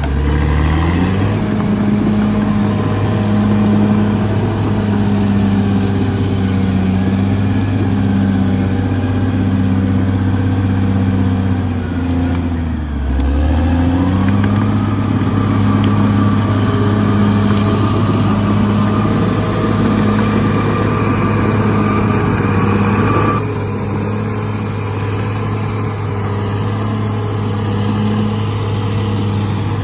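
Bulldozer's diesel engine running hard, its speed sagging and recovering twice, near the start and again about halfway through. A steady higher whine rides over it through the middle and cuts off sharply about three-quarters of the way in.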